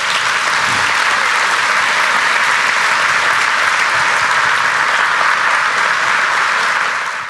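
Congregation applauding steadily, tapering off slightly near the end.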